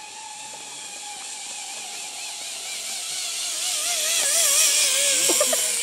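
Zip line trolley pulleys running along the steel cable: a whine that slowly falls in pitch and wavers, over a rushing hiss. It grows louder as the rider passes close by, about four seconds in, and then fades.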